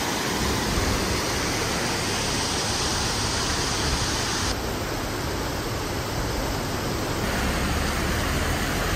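Mountain stream rushing and cascading over rocks as a steady, loud wash of water. Its tone shifts abruptly about four and a half seconds in and again near seven seconds.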